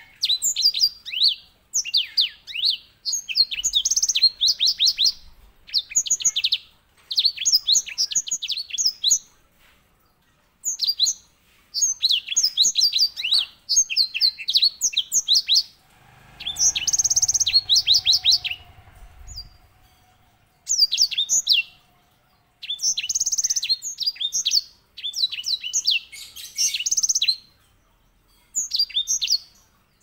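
Grey singing finch (white-rumped seedeater) singing in a cage: rapid rolling trills of high, sharp notes in phrases of one to two seconds, with short pauses between. A low rumble passes under the song about halfway through.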